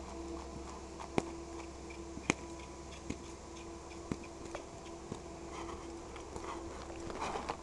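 Hooves of a cantering horse on a sand arena floor: scattered soft ticks and thuds, roughly one a second, over a steady faint hum.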